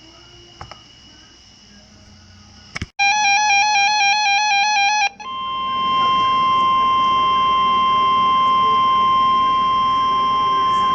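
NOAA Weather Radio alert signal: a two-second burst of rapidly warbling SAME digital header tones about three seconds in, then the steady single-pitched 1050 Hz warning alarm tone over radio static. The alarm tone marks a warning broadcast, here a severe thunderstorm warning.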